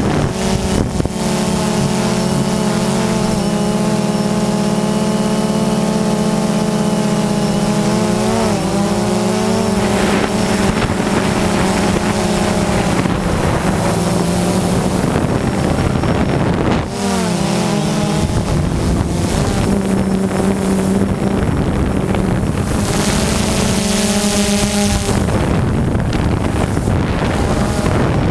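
Quadcopter drone's electric motors and propellers whining steadily, heard through the camera mounted on the drone, with wind noise on the microphone. The pitch wavers and shifts about eight to ten seconds in and again around seventeen seconds as the drone changes speed.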